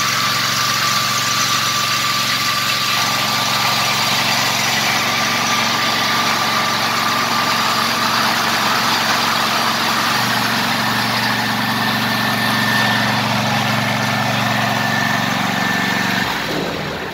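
Seco Starjet ride-on mower tractor's engine running steadily with a thin whine on top. The engine note shifts about ten seconds in, and the sound stops suddenly near the end.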